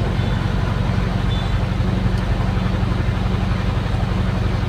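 Excavator's diesel engine running steadily with a constant low hum, heard from inside the cab.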